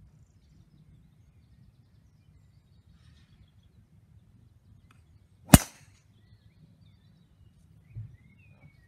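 Callaway XR Speed driver striking a golf ball: one sharp crack about halfway through. A faint low thump follows a couple of seconds later.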